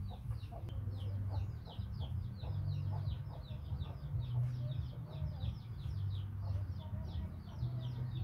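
Birds chirping in short, high-pitched calls, several a second, over a low steady hum.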